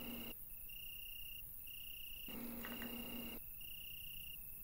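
Crickets chirping in even pulses at one steady pitch, about one chirp a second, as night-woods ambience. A lower hissing drone with a hum joins in at the very start and again about halfway through.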